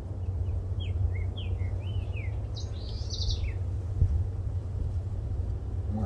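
A distant green-winged saltator singing one phrase of short, slurred whistled notes, answering another saltator. A steady low rumble runs underneath, and a single thump comes about four seconds in.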